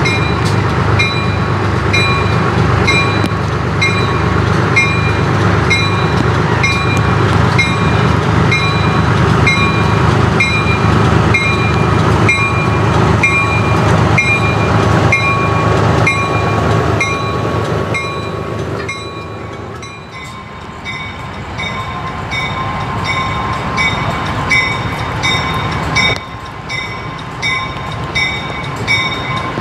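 Small diesel switcher locomotive running past at low speed, its engine rumbling, while a locomotive bell rings steadily about twice a second. The engine rumble falls away about two-thirds of the way through, and the bell keeps ringing, a little lower in pitch.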